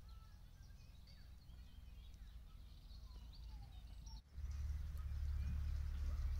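Birds chirping and singing faintly over a low, steady rumble; the rumble becomes much louder about four seconds in.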